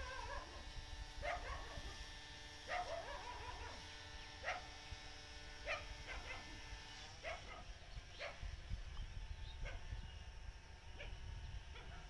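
A dog barking repeatedly: short barks every one to two seconds, some closer together.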